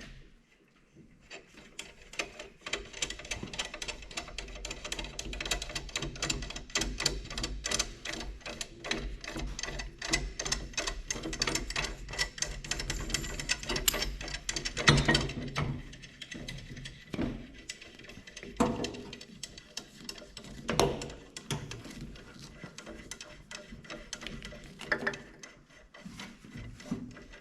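Ratchet wrench clicking rapidly as it turns the threaded puller drawing the wet cylinder sleeves out of a John Deere 2020 engine block, with a few louder knocks in the second half.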